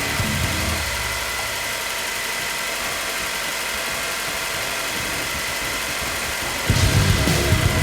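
1997 Toyota Camry's 2.2-litre four-cylinder engine idling with a steady high whine, running on a freshly fitted alternator that is charging at about 14.4 volts. Near the end, a louder, deeper sound starts abruptly.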